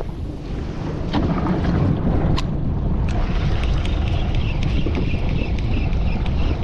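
Wind blowing on the microphone aboard a small open fishing boat, a steady low rumble, with a few light clicks and a higher hiss that joins about three seconds in.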